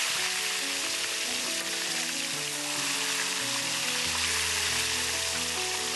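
Whole fish deep-frying in a wok of hot oil, the oil sizzling and crackling steadily. A melody of held notes plays underneath.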